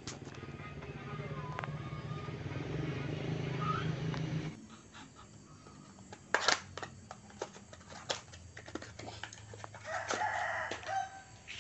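Scattered clicks and knocks of metal engine parts being handled during assembly, with a bird call lasting about a second near the end. A steady low hum runs under the first four and a half seconds and cuts off suddenly.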